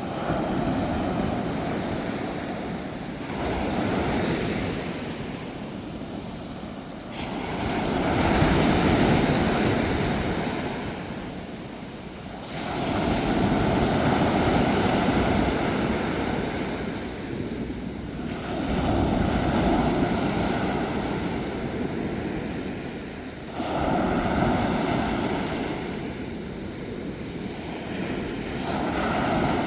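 Ocean waves breaking and washing up on the shore, a rushing surge that swells and ebbs about every five seconds.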